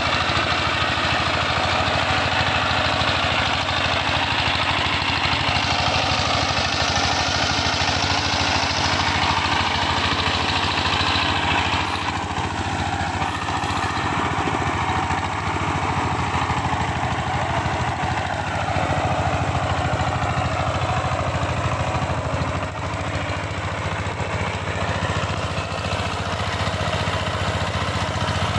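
Two-wheel power tiller's single-cylinder diesel engine running steadily while the tiller is stuck in deep mud. The sound turns duller about twelve seconds in.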